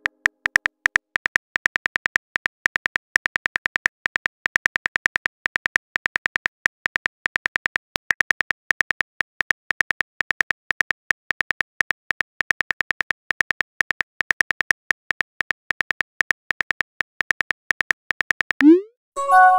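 Rapid on-screen keyboard click sounds, several a second, as a text message is typed in a texting app. Near the end a short rising swoosh and a chime of a few tones mark the message being sent.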